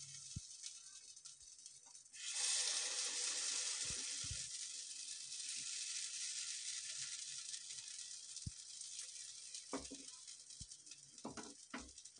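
Semolina and green-pea appe batter sizzling as a spoonful is dropped into an oiled cavity of a hot appe pan. The hiss starts suddenly about two seconds in and slowly dies away, with a few light knocks of the spoon against the pan near the end.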